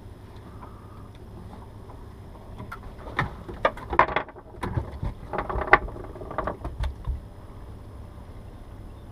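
Fishing tackle on a boat clicking and rattling as it is handled: a few seconds of irregular sharp clicks and knocks in the middle, over a steady low rumble.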